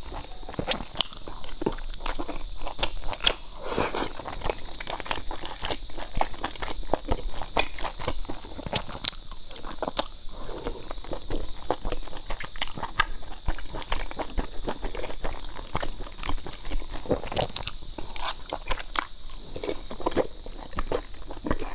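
Chewing of slippery wide flat noodles in chili oil: a steady, irregular run of wet mouth clicks and smacks.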